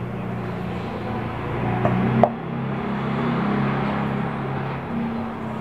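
A steady low mechanical hum, with a utensil stirring and scraping wet grated carrot filling in a stainless steel bowl; two light clinks of the utensil against the bowl about two seconds in.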